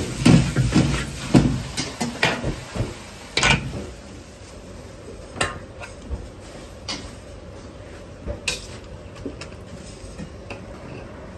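Ladle and metal wok clanking as food is tossed and stirred in the wok: a quick run of knocks in the first few seconds, then only a few scattered clinks over a faint steady kitchen hum.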